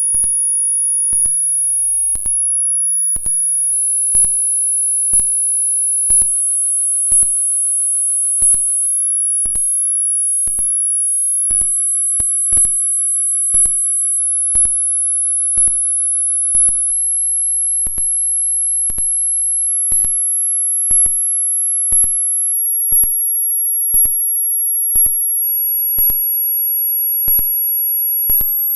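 High-pitched pure sine test tone for a hearing test, held around ten to twelve thousand hertz and stepping slowly up in pitch. A faint tick sounds about once a second.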